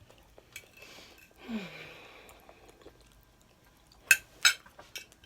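Soft chewing of pot pie with a brief low hum, then two sharp clinks of a utensil against a dish about four seconds in.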